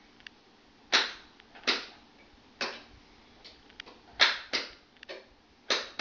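Wall toggle switches on an electrical wiring board being flipped on and off: about seven sharp, irregularly spaced clicks, with a few fainter ticks between.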